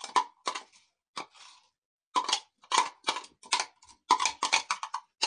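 Fingers scraping chopped green chillies out of a glass bowl: a run of light clicks and taps against the glass, irregular at first, then quicker and closer together from about two seconds in.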